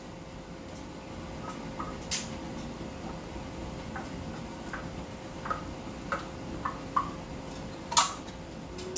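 Metal spoon scraping and tapping tuna out of a tin can into a pan: a string of light metallic ticks and clinks, with sharper knocks about two seconds in and near the end, over a steady faint hum.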